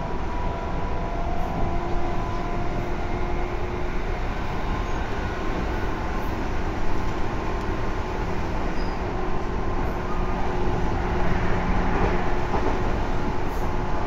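Tobu 10030 series electric train running at speed, heard from inside the passenger car: a steady rumble of wheels on rail with faint steady motor and gear hum. The running noise grows a little louder near the end.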